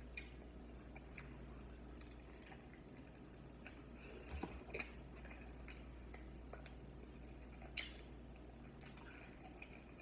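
Faint wet mouth sounds of someone eating hot chicken wings: chewing, lip smacks and finger licking, with a few sharper smacks about four and a half seconds in and again near eight seconds.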